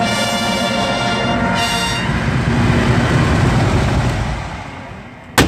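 Massed military brass band holding a final chord that cuts off about two seconds in, followed by a crowd applauding that gradually fades. A single sharp click just before the end.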